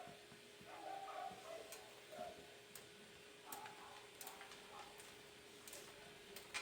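Near silence: room tone with a faint steady hum and a few light scattered clicks.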